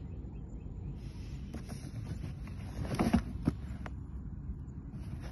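Large cardboard firework box being handled and shifted on a concrete floor, with two or three short knocks about three seconds in, over a low steady rumble.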